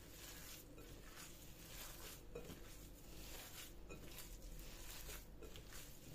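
Hands kneading a moist minced-meat köfte mixture in a glass bowl: faint, soft squelches with each squeeze, repeated steadily.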